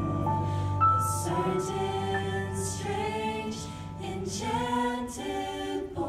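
Vocal ensemble singing held chords into handheld microphones over a low sustained bass note, with soft breathy sibilant sounds here and there.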